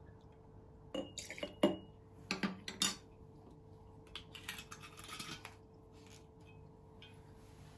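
A plastic measuring spoon clinks and taps against a small glass jar and the tabletop. There are several sharp knocks between about one and three seconds in, then a softer rustle around five seconds.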